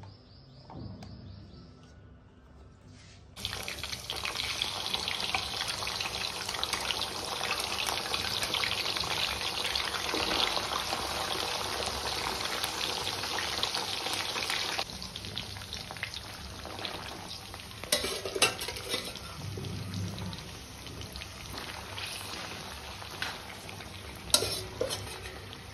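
Chicken pieces deep-frying in groundnut oil in a kadai. A loud, dense sizzle starts suddenly about three seconds in and eases to a lower steady sizzle after about fifteen seconds, with a few sharp clinks of the slotted steel spoon against the pan near the end.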